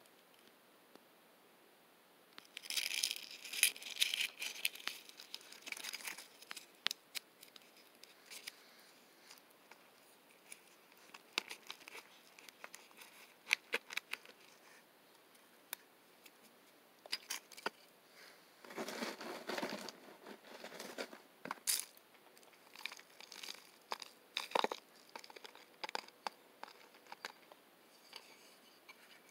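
Hands working loose potting soil among eggshells, seashells and a glass dish: rustling and crinkling handling noises with scattered small clicks and taps. Two longer stretches of rustling come a few seconds in and about two-thirds of the way through.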